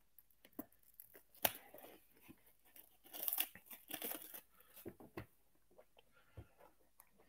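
Clear plastic shrink-wrap being torn and peeled off a trading-card hobby box, in short crinkling, ripping bursts with a few small clicks, the busiest stretch about three to four and a half seconds in.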